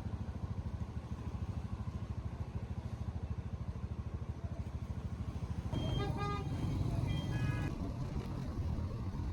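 Street traffic with a steady engine rumble, and a vehicle horn honking twice in quick succession about six and seven seconds in.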